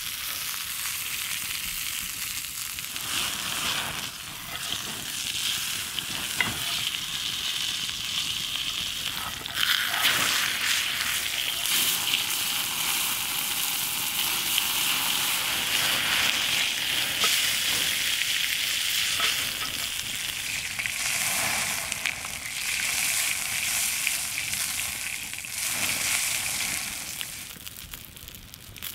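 Bone-in ribeye steak sizzling in a pan over an open wood fire: a steady hiss with a few sharp pops. It grows louder about a third of the way in and eases off near the end.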